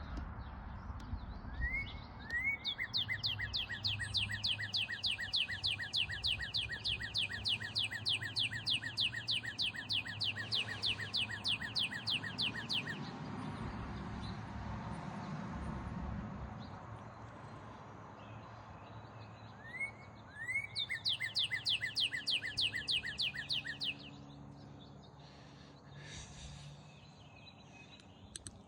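A songbird singing two long songs. Each opens with a couple of rising notes, then runs into a fast, even series of repeated downslurred notes, about four a second. The first song lasts about ten seconds, the second about four.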